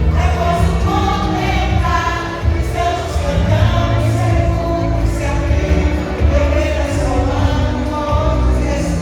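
A vocal group singing a gospel song together to an amplified accompaniment with a steady bass.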